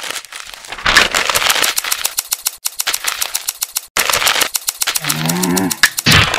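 Rapid, steady clicking, about nine clicks a second, as a sound effect for cartoon scissors snipping as they move, with stretches of hiss behind it. About five seconds in, a short pitched voice-like sound.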